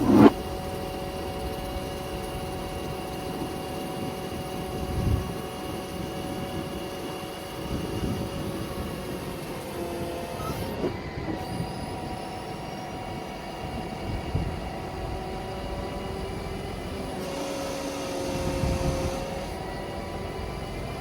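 A digger derrick truck's Cummins ISB 6.7-litre diesel running with a steady whine on top. The whine shifts in pitch about halfway through and again near the end, and there are a few low thumps.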